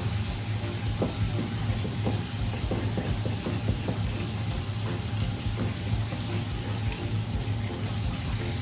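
Water running from a tap into a sink, over a steady low hum, with a few light knocks in the first few seconds.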